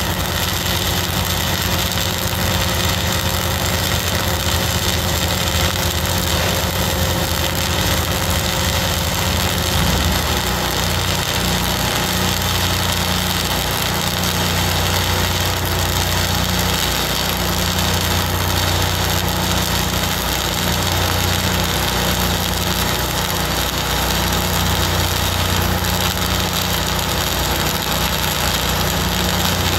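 Continuous flux-cored arc welding with 1/16-inch XLR-8 self-shielded wire at about 25.5 volts: a steady hiss and crackle of the arc as a horizontal bead is run. Underneath runs the low hum of a Lincoln 305D engine-driven welder, which changes in character about ten seconds in.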